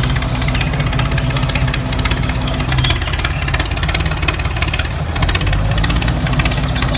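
An engine idling steadily with a fast, even knock, much like a small tractor engine ticking over. It cuts off abruptly right at the end.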